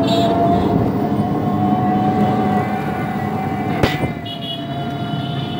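Motorized three-wheeler's engine running as it rides along, a steady rumble with a thin whine above it. A sharp knock comes about four seconds in, after which a high steady tone joins the engine noise.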